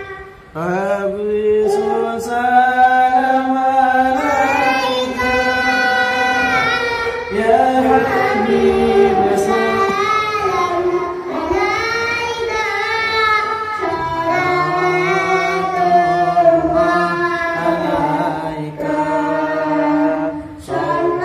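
A young child singing sholawat into a microphone, long held notes that slide and bend in ornamented melismatic runs (cengkok).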